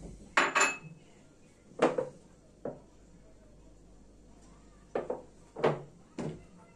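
Kitchenware handled on a counter: a string of short knocks and clinks from a bowl and a plastic oil bottle as cooking oil is poured into the bowl, with a quiet gap of about two seconds in the middle.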